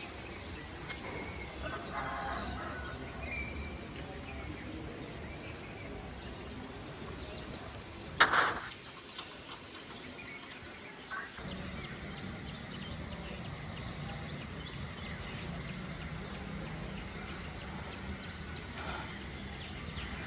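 Outdoor ambience of many small birds chirping, with one short, loud call about eight seconds in. A low steady hum joins a little after eleven seconds.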